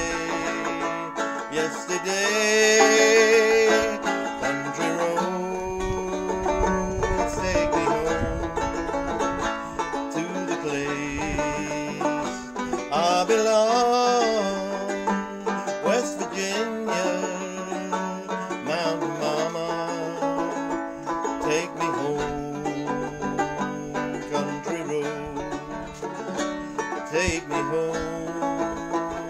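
Banjo strummed in a steady country rhythm, with a man singing along in long, wavering held notes.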